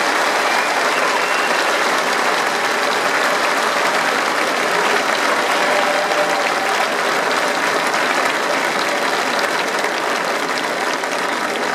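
A large crowd applauding, a dense steady clatter of many hands, easing slightly near the end.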